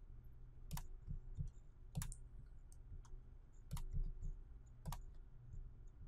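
Faint clicks of a computer mouse and keyboard: about four sharp single clicks spaced roughly a second apart, with a few lighter ticks between, over a faint low hum.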